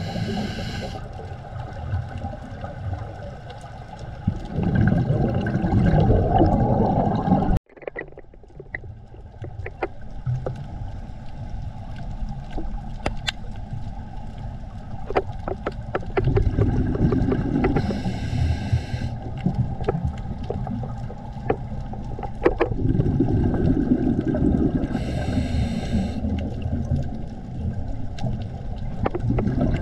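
Muffled underwater sound through a camera's waterproof housing: a steady low rumble with scattered clicks, and bursts of bubbling from a scuba diver's regulator exhalations every several seconds. The sound drops out abruptly about eight seconds in, then resumes.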